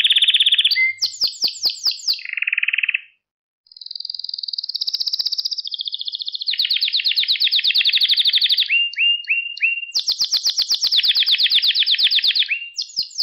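Domestic canary singing a long song of rapid trills, each a fast run of repeated notes that holds one pitch and then jumps to another, with a brief pause about three seconds in.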